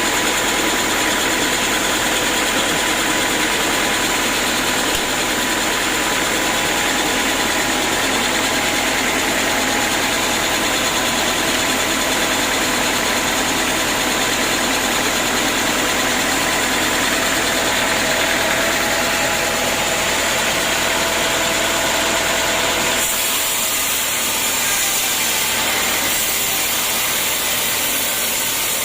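Sawmill machinery running steadily, a loud even mechanical noise with a few steady whining tones. About two thirds of the way through it changes abruptly to a thinner sound with less low rumble.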